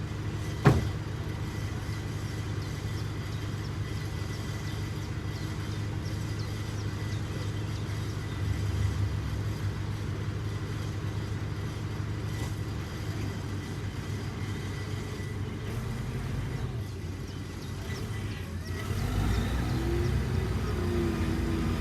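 Heavy diesel engine running steadily, with one sharp knock about a second in. Near the end the engine gets louder and a wavering whine rises over it.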